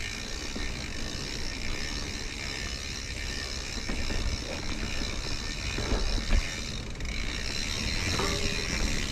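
Mountain bike being ridden along a dirt trail: a steady rolling and rattling noise, with a couple of knocks from bumps about six seconds in.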